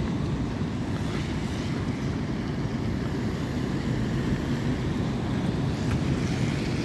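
Steady low rumble of wind buffeting the microphone, with the rush of surf beneath it. Near the end a car's tyres hiss past on the wet road.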